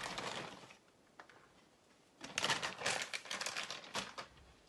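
Plastic bag of grated cheese crinkling as it is handled: a short spell at first, then, after a pause of about a second and a half, a longer run of crackling lasting about two seconds.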